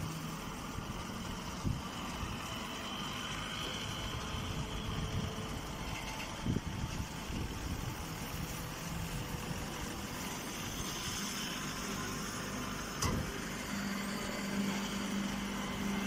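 Steady machinery hum from a running hay baler's electric motor and hydraulic pump, with a low steady tone that swells and fades. One sharp click sounds late on.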